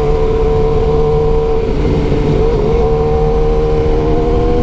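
BMW S1000R's inline-four engine running at steady revs, a constant engine note that wavers slightly about two and a half seconds in.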